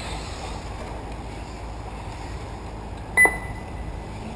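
A single short, high-pitched electronic beep about three seconds in, the loudest sound, over steady low background noise.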